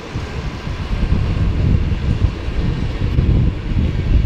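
Diesel locomotives on a train, the S-class S306 and a V/Line locomotive, running with a loud, uneven low rumble.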